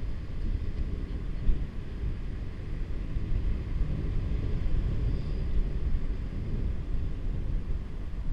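Wind buffeting the microphone of a head-mounted camera on a moving bicycle: an uneven low rumble that swells and dips.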